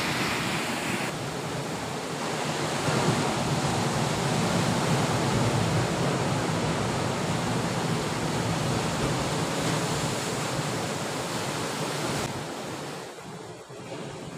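Sea surf breaking and washing against a rocky shore, a steady rushing wash that dies down near the end.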